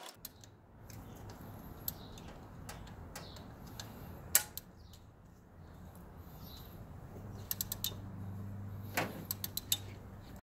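Metal clicks and knocks of a wrench working loose the camshaft gear bolt of a Honda Civic engine over a steady low hum. A few single clicks give way to quick runs of clicks near the end.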